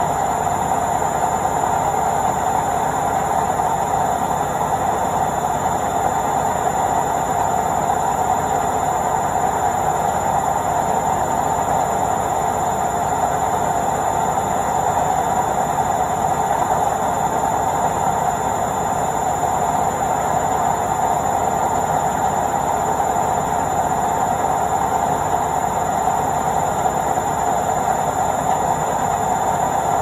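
Indesit IWC71252 front-loading washing machine on its spin cycle, the drum spinning at a steady speed. The drum and motor make a constant whirring rumble, with a thin steady high whine over it.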